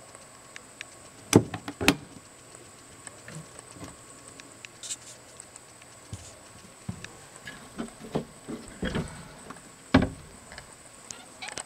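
Scattered knocks and taps, with two loud bumps about a second and a half in, a cluster of lighter ones later, and another loud bump near ten seconds. A faint steady high whine runs underneath.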